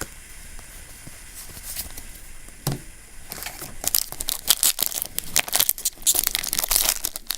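A foil trading-card booster pack being torn open and its wrapper crinkled by hand. It is quiet at first, then a dense run of crackling starts a little past the midpoint.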